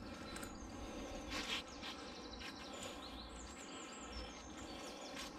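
Quiet outdoor background with small birds chirping faintly in the middle and a low rumble underneath, broken by a few light knocks, one slightly louder about a second and a half in.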